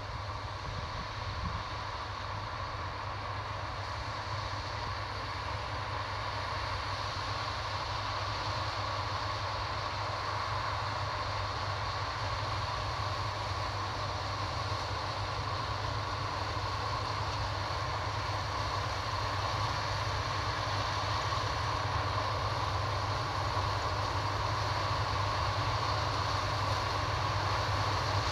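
Combine harvester running steadily as it harvests dry corn, a continuous machine drone with a low hum that grows slowly louder as it comes closer.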